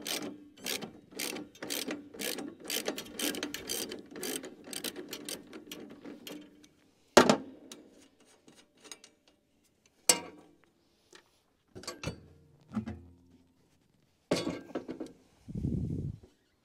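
Hand ratchet wrench clicking in a quick run for several seconds as bolts are turned out. It is followed by a few separate sharp knocks and clunks of metal parts and tools being handled, the loudest about seven seconds in, with a short low thud near the end.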